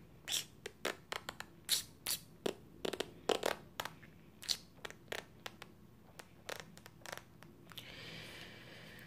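Irregular crinkling and clicking, a couple of dozen sharp crackles of something being handled close to the microphone, with a soft hiss near the end.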